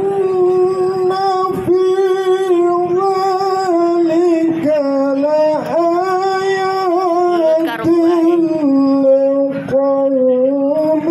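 Quran recitation in the chanted, melodic tilawah style: a single voice holding long notes with ornamented turns and glides, pausing briefly for breath.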